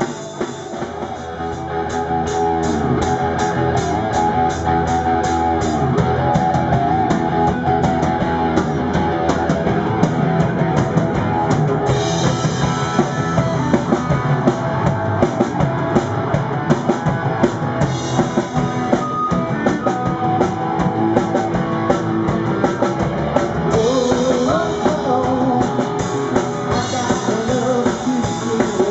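Live rock band playing an instrumental stretch with electric guitar, bass and drum kit, the drums keeping a steady beat under sustained, bending guitar lines.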